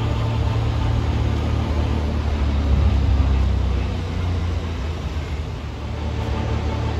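Snow-removal machinery working: a loader-mounted snowblower and a dump truck running together, a steady low engine drone that swells briefly about three seconds in.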